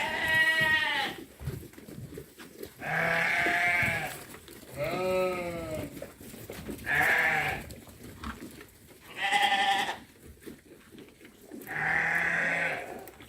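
Sheep bleating: about six calls, each roughly a second long, one every two seconds or so.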